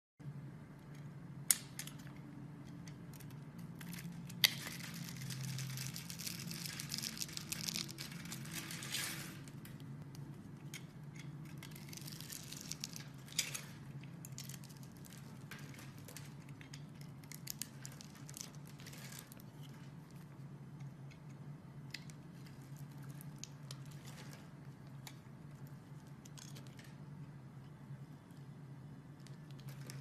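Snap-off utility knife cutting through a bar of soap scored into a grid, with crunchy crackling as small soap cubes break away and scatter onto the surface. The crackling is densest from about five to nine seconds in, then thins to scattered ticks, and two sharp clicks come in the first few seconds. A steady low hum runs underneath.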